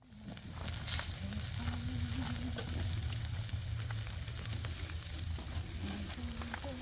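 Sausages and rice cakes sizzling as they cook, a steady crackling hiss with scattered sharp pops. It fades in at the start.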